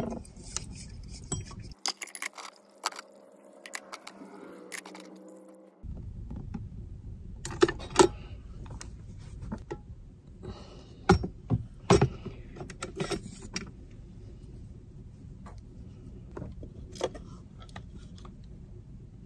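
Metal cookware and utensils clinking and knocking as they are handled and packed away, a string of irregular sharp clinks with a few louder knocks around the middle.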